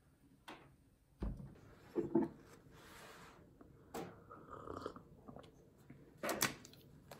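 Small tabletop handling sounds: a ceramic mug and things on the table knocked and set down, several light knocks and clicks with soft rustling between them. The strongest is a dull thump about a second in, and a sharp click cluster comes near the end.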